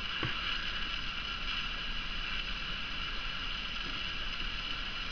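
Steady background hiss with a faint constant whine: room tone, with no distinct event apart from a faint click about a quarter second in.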